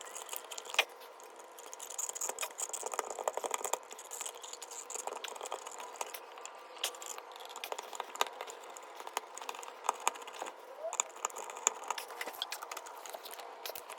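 Small clicks, rattles and scrapes of a GFCI outlet and its hardware being handled, pushed back into a wall box and fastened in place.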